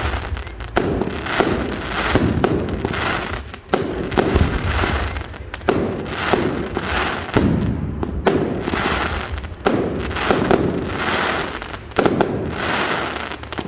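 Fireworks display: a dense string of sharp bangs from bursting shells, about one every second, with a continuous crackle between them.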